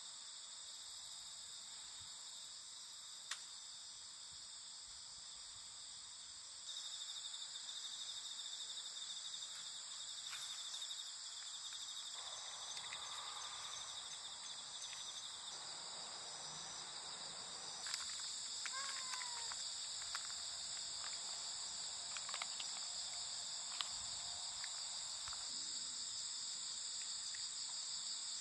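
Steady chorus of insects: several high, shrill trills layered together without a break. A few faint clicks and a brief chirp come through about two-thirds of the way in.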